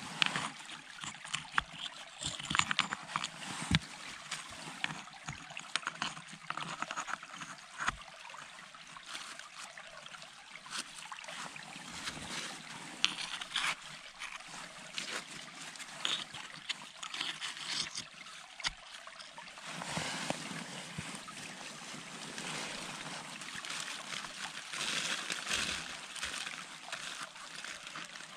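Dry leaves and grass crackling and rustling as a gloved hand stuffs them into the gaps between stones, with many small irregular crackles and the odd scrape of leaf litter on rock.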